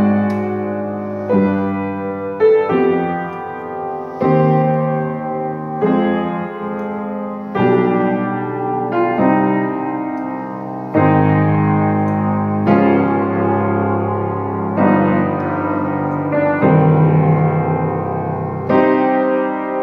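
Steinway & Sons Model A grand piano, 1.90 m long and rebuilt as new, being played: unhurried chords, a new one struck every second or two and left to ring.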